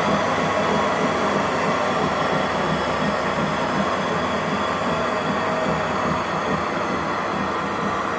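Motorised treadmill with a 5 horsepower motor running at speed: a steady whir from motor and belt, with a fast rattle underneath and a faint steady whine.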